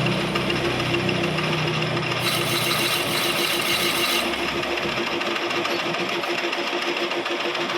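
Lathe running steadily while a parting tool cuts the turned chess pawn off the stock, with a louder, hissing cutting sound from about two to four seconds in. The sound drops off suddenly at the end.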